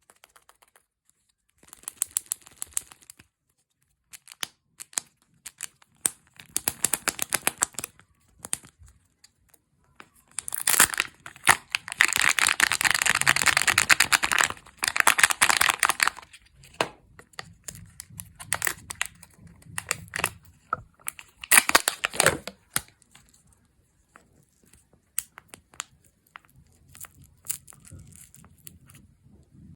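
Kinder chocolate egg wrappers being crinkled and torn open by hand, in crackly bursts with scattered clicks. The longest and loudest tearing comes about a third of the way in, with another sharp rip later.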